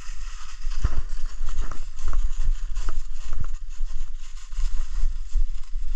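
Footsteps through frozen leaf litter and thin snow at a quick walk, about two steps a second, over a steady low rumble on the microphone.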